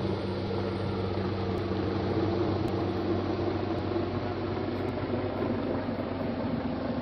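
Helicopter hovering overhead: a steady drone of rotor and engine.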